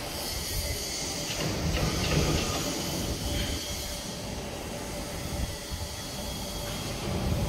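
Powered-up CNC grinding machine for UC bearing inner rings running: a steady mechanical hum with a constant hiss and a faint steady tone, swelling a little about two seconds in and again near the end.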